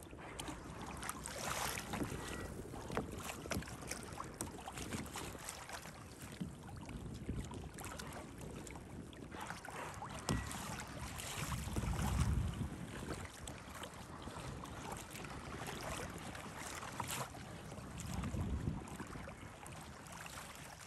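Wind buffeting a phone's microphone on open sea, with small waves lapping and splashing against a kayak hull. Two louder low gusts come about twelve seconds in and again near the end.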